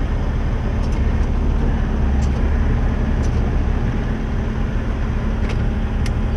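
Heavy truck diesel engine running steadily with a deep, even rumble, as the stuck loaded dump truck is winched free. A few short, sharp high ticks are heard over it, about five in all.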